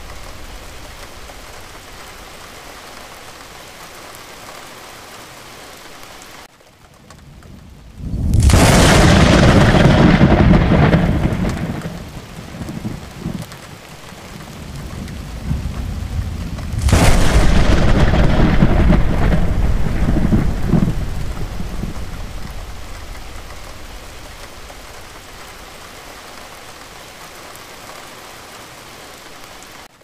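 Steady heavy rain with two loud thunderclaps, the first about eight seconds in and the second about nine seconds later, each cracking suddenly and then rumbling away over several seconds. The rain hiss dips briefly just before the first clap.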